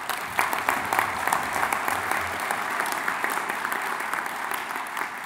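Audience applauding: dense, steady clapping that starts just as the speech ends.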